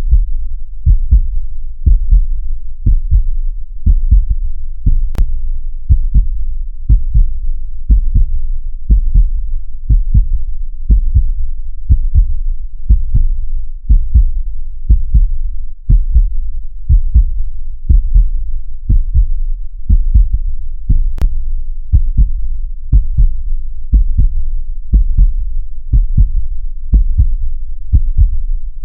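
Heartbeat sound: steady, deep double thumps repeating at about one beat a second.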